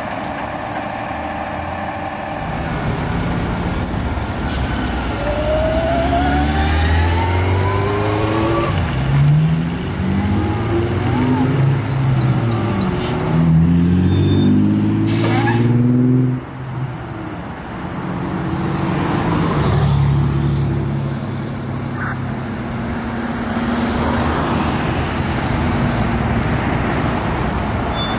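Fire engine's diesel engine pulling away and accelerating, its pitch climbing in repeated steps as it revs up through the gears. A short burst of air hiss comes about halfway through, typical of the air brakes.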